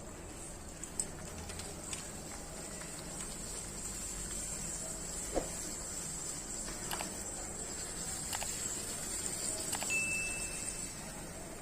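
Quiet miniature cooking: a faint steady high sizzle with scattered small pops and clicks, and one short high chirp near the end.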